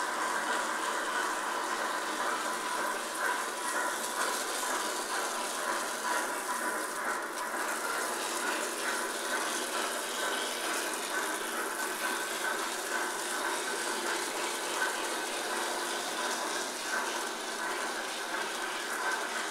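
N gauge model trains running: the small electric motors whirr steadily with a faint high whine, and the wheels rattle over the track and rail joints.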